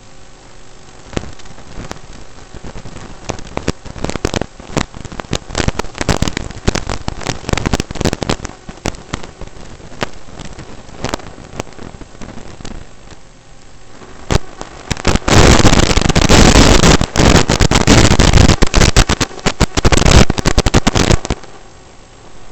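Crackling static from an analog FPV video link's audio, scattered sharp crackles that thicken into a loud, dense hiss from about 15 to 21 seconds in, then thin out again.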